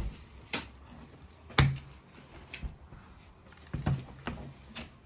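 Several short knocks and thuds on a metal-topped work table as dough is handled with a wooden rolling pin, spaced irregularly, the loudest about a second and a half in.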